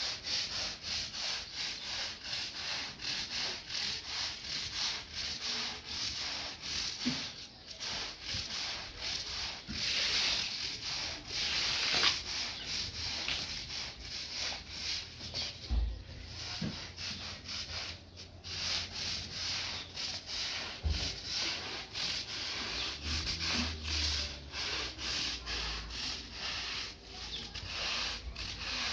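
Repeated rubbing strokes, about two a second, continuing steadily throughout.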